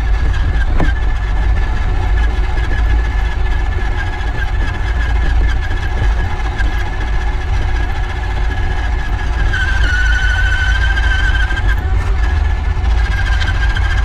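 Redcat Everest 10 RC rock crawler's electric motor and gears whining steadily as it crawls, picked up by a camera mounted on the truck, over a heavy low rumble. The whine drops a little in pitch about ten seconds in.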